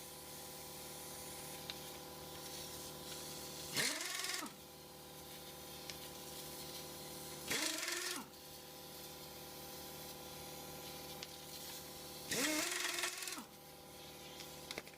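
Handheld power tool, likely spinning the 17mm wheel bolts, run in three short bursts; each time the motor speeds up and winds back down. A steady faint hum lies underneath.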